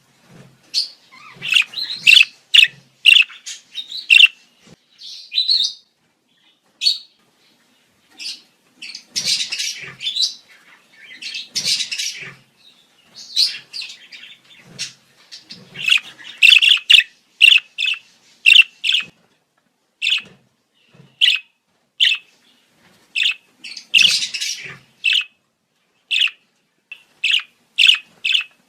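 Budgerigars chirping and warbling: quick, irregular short chirps, broken by a few denser bursts of chatter.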